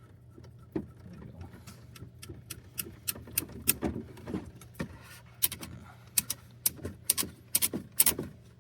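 Small irregular clicks and ticks of a hand screwdriver and small hardware as a small screw is turned in by hand, the clicks coming thicker from about a third of the way in.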